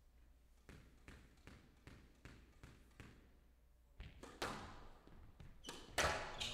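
Squash ball bounced lightly about seven times, roughly two and a half bounces a second, as the server readies. Then the rally starts with sharp smacks of racket on ball and ball on the walls, the loudest about six seconds in.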